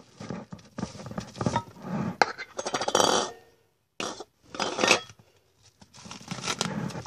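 Clinking and scraping of glass jars and metal kitchenware being handled, in irregular bursts with a short pause a little past halfway.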